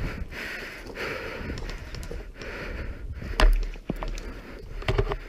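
A person breathing hard, several loud breaths about a second apart, close to the microphone. A sharp knock comes about three and a half seconds in, and a few short clicks near the end.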